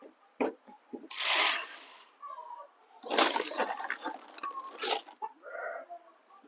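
Chicken feed poured from a metal scoop into a feeder: two rushing pours, each about a second long, one about a second in and one about three seconds in, with knocks around them.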